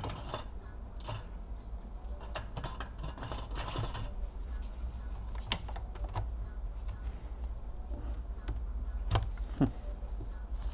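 A sharp tool prying at a stuck laptop display and its plastic casing: scattered small plastic clicks and scrapes, bunched together a few seconds in and then coming singly, over a steady low hum.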